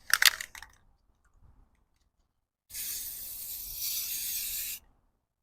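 Aerosol spray-paint can spraying in one steady hiss lasting about two seconds, starting about halfway in.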